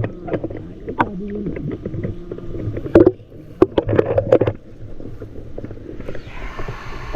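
Muffled underwater sound picked up by a submerged camera: bubbling, with scattered clicks and knocks. About six seconds in the sound opens up into the rush of water in open air as the camera comes out.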